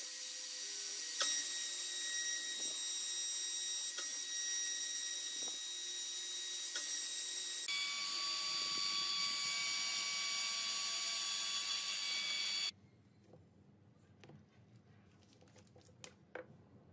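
CNC router spindle milling aluminium: a steady high-pitched whine made of several fixed tones, which shifts to a different set of tones about eight seconds in and cuts off suddenly after about twelve seconds. A few faint clicks follow in the quiet.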